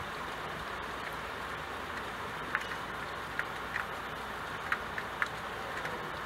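Steady rain falling, an even hiss, with a handful of sharp ticks from single drops striking the window glass from about halfway through.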